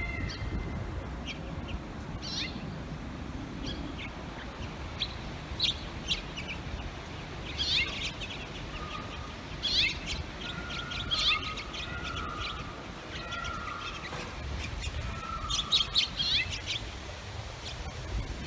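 Finches chirping: many short high chirps scattered throughout, with a few short steady whistled notes in the middle, over a low steady rumble.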